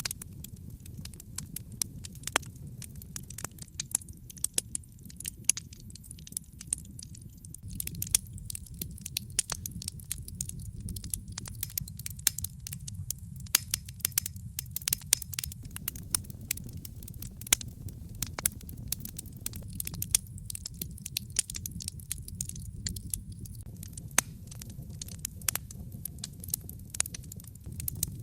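Fire crackling in a fireplace: irregular sharp pops and snaps, several a second, over a steady low rumble.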